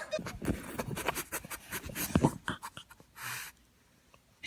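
A pug being held and handled: scattered soft knocks and rustles, and a short breathy puff a little past three seconds in, then quiet.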